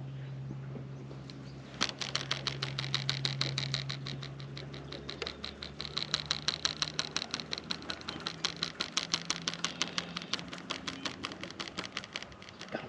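Fishing reel being cranked fast on a retrieve, clicking rapidly at about six ticks a second, with a steady low hum underneath for the first few seconds.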